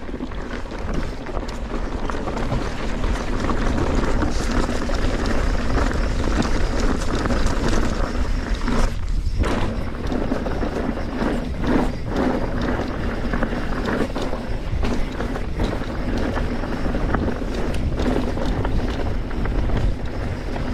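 Mountain bike riding down a loose, rocky trail: tyres crunching over gravel and stones and the bike rattling with many small knocks, over a steady wind rumble on the microphone. It gets louder over the first few seconds as the bike picks up speed.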